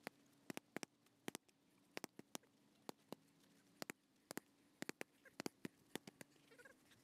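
Boxing gloves hitting focus mitts: sharp slaps in quick combinations, often two or three in a row, at uneven intervals.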